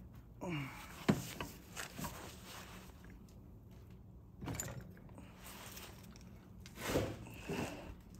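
Hand tools working on bolts as they are tightened: a few scattered metal clicks and knocks, the sharpest about a second in, with a brief falling creak just before it.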